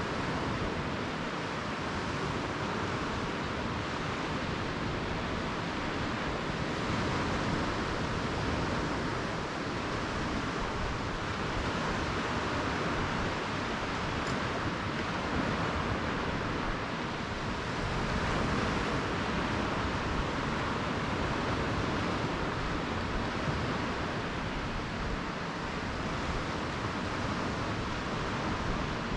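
Low surf breaking and washing up a sandy beach: a steady wash of noise that swells and eases every few seconds.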